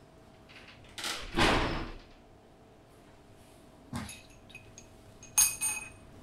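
A café's glass front door swings shut with a loud rush of air and street noise. A single knock follows, then a sharp, ringing clink of crockery as the table is cleared.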